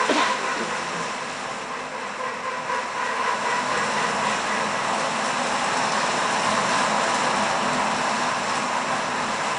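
A steady, even rushing noise with faint held tones in it, and a sudden sharp sound right at the start.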